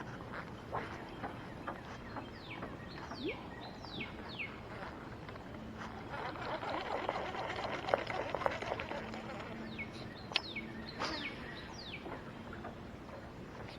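Bird calls: two runs of short, quick whistles that each fall in pitch, over a quiet outdoor background. Midway there is a louder stretch of rustling with a few sharp clicks.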